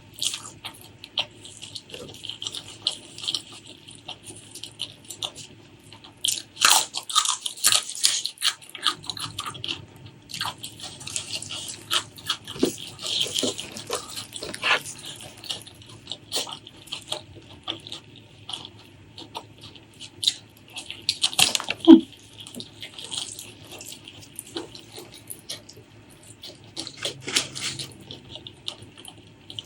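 Close-miked wet chewing and lip-smacking of a person eating spicy pork leg curry with rice: a dense run of irregular clicks and squelches, with one sharp, loud click about 22 seconds in.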